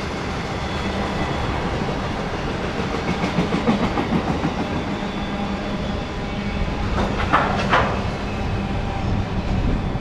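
Freight train of autorack cars rolling past on the rails: steady wheel-on-rail rumble with clickety-clack over the rail joints, and two louder metallic clatters about seven seconds in.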